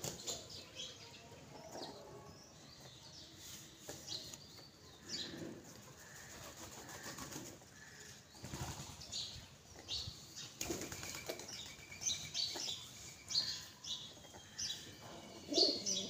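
Feral rock pigeons in a feeding flock, their wings flapping in short irregular bursts as birds jostle, hop and take off, with a few short high chirps.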